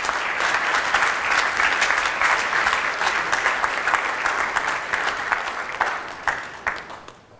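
Audience applauding: many hands clapping together, dying away about seven seconds in.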